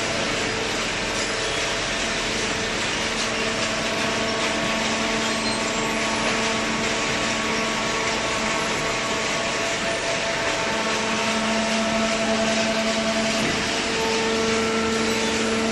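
Horizontal cardboard baler with infeed conveyor running: a steady machine drone with a few held humming tones over it.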